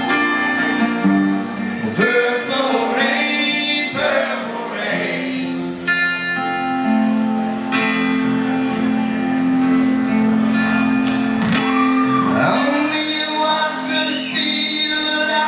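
Live band playing: long held keyboard chords under a singing voice, with guitar and a few drum hits, in a large hall.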